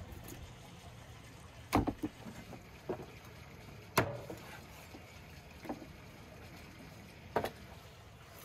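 Cleaver chopping through lamb on a wooden cutting board: about six sharp knocks at irregular intervals, the sharpest about four seconds in.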